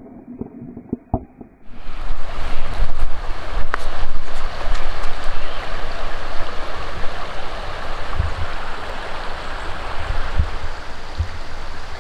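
A few muffled knocks, then about two seconds in a sudden, steady rush of moving water, with low rumbles of wind on the microphone near the end.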